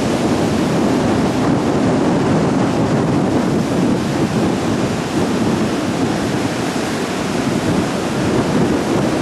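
Heavy sea surf in strong wind: a steady, loud rushing noise of waves with wind.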